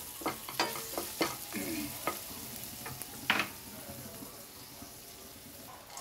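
A spatula stirring and scraping a pan of spices, curry leaves and turmeric frying in sizzling oil: several sharp scrapes and clinks in the first three and a half seconds, the loudest a little after three seconds, then only the sizzle.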